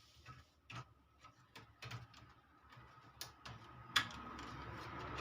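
Faint, irregular light clicks and taps from handling the amplifier and tools. About four seconds in comes a sharper click, followed by a steady low hum.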